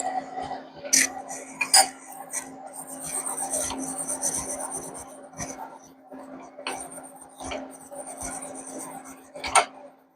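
Small metal parts clinking and scraping against each other and a work surface, in scattered knocks with a longer scratchy stretch in the middle, over a steady low hum.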